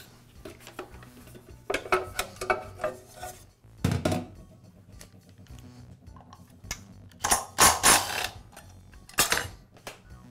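Metal clinks and clatters of a wrench and saw parts being handled as the blade is taken off a Milwaukee metal-cutting saw, in several short bursts, with a duller knock about four seconds in.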